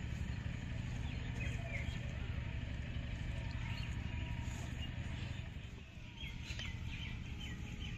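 Faint, scattered bird chirps over a steady low outdoor rumble.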